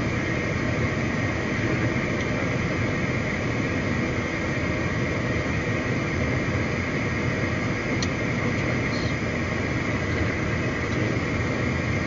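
Steady cockpit noise of a CRJ 700 regional jet in flight on approach: an even rush of airflow and engine noise, unchanging in level.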